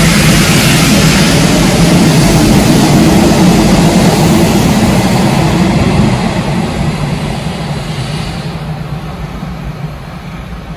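Nishitetsu electric commuter train running past the platform: a loud rumble of wheels and motors as the cars go by, fading steadily from about six seconds in as the train moves away down the line.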